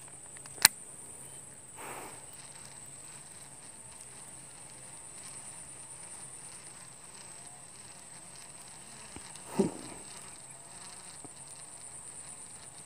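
Steady, high-pitched insect chirring, with a single sharp click just under a second in and a short, duller knock about ten seconds in.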